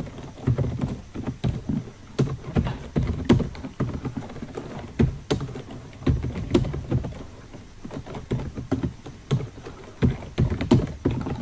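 Typing on a computer keyboard: irregular clacking keystrokes, a few per second, as code is entered.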